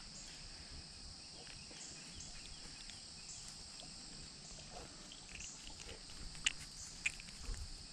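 Evening insect chorus: a steady high-pitched buzz with short paired chirps repeating about every second. A few sharp clicks sound near the end.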